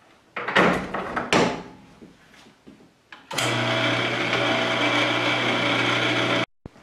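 Two brief rustles, then an electric printing press running steadily for about three seconds with a low motor hum, its bed carrying the inked woodblock and paper under the felt blankets through the roller; the sound cuts off suddenly.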